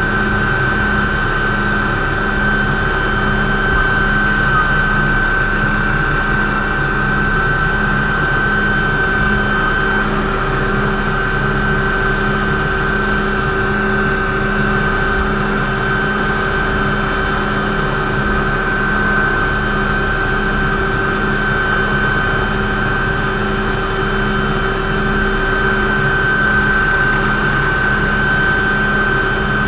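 McDonnell Douglas MD500C helicopter running steadily, heard from inside the cockpit as it flies low over grass. Its turbine engine gives a constant high whine over a fast, even beat from the rotor.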